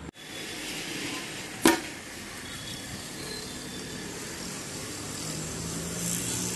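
Steady outdoor background noise with one sharp knock about a second and a half in, and a faint low hum near the end.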